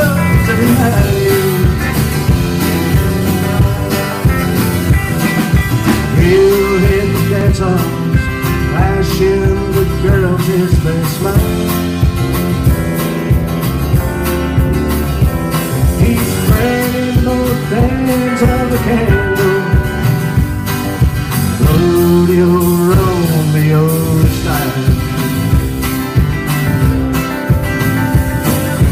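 A live band plays a song: electric and acoustic guitars and a drum kit keeping a steady beat, with a sung lead vocal.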